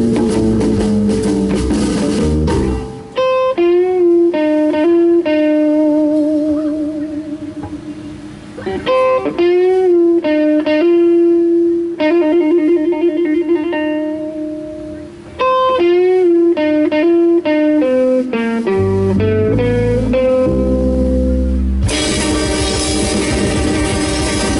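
Live rockabilly band: after a couple of seconds the band drops out and an electric guitar plays an unaccompanied solo break of single-note licks with string bends and vibrato. Near the end a few low bass notes step down, and the full band with drums comes back in.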